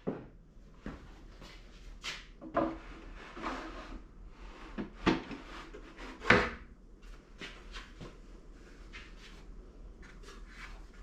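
Wooden jig parts and scrap stock knocking and clunking as they are handled and set into place, with the sharpest knock about six seconds in and lighter clicks after it.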